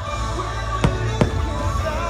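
Orchestral fireworks-show soundtrack playing, with two sharp firework bangs about a second in, a third of a second apart.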